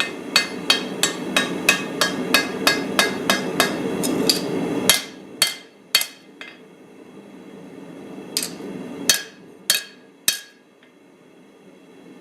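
Hammer blows ringing on hot steel and anvil while forging a small cleaver blade: a quick run of strikes, about three a second, for the first five seconds, then a few slower, separate blows. A steady low rush runs under the quick run and dies away when it stops.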